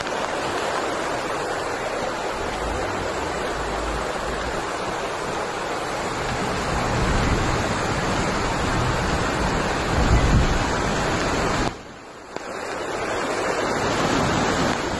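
Floodwater rushing in a torrent down a street in heavy rain, a steady loud rush of water. There is a louder low rumble about ten seconds in, and the sound dips briefly just before twelve seconds.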